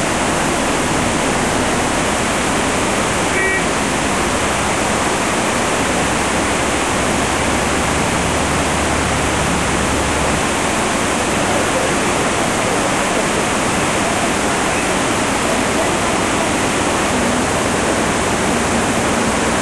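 Steady rushing of a swollen, fast-flowing river in flood, the churning whitewater giving an even, unbroken noise.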